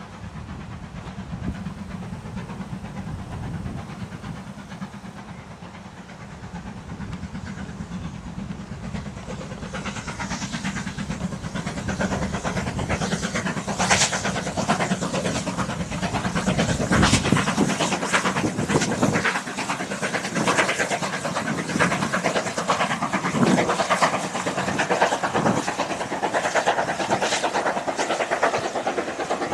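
Steam locomotive 70000 Britannia, a BR Standard Class 7 Pacific, running past with a train, growing louder as it nears. From about halfway it is close by with a quick clatter, and in the last third the coaches' wheels click over the rail joints as they go by.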